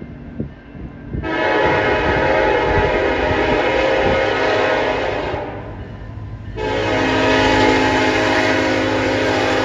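Diesel locomotive air horn on a freight train sounding two long blasts, a chord of several steady tones, with a short gap between them. Wind gusts buffet the microphone just before the first blast.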